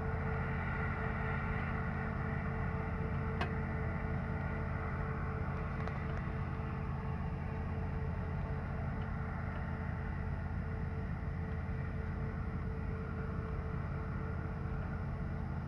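Claas Lexion combine harvester running steadily while threshing rye, a constant low drone with no change in pitch. One faint click about three seconds in.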